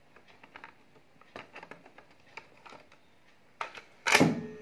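Cassette tape being slid into a Pioneer car cassette deck's slot with small plastic clicks and rattles, then a loud mechanical clunk near the end as the deck's loading mechanism takes the tape in and engages, followed by a steady hum as the tape transport starts.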